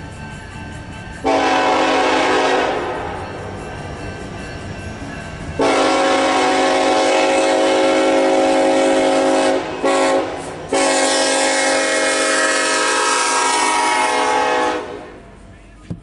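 Union Pacific SD70ACe 8440's raised-letter Nathan K5LA five-chime air horn sounding the grade-crossing pattern: long, long, short, long. The train's low rumble runs underneath as it approaches the crossing.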